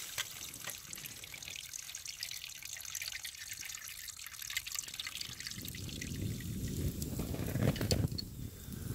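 Water dripping and trickling as camp cookware is rinsed for washing up, with small splashes throughout; the sound grows fuller and louder from about halfway.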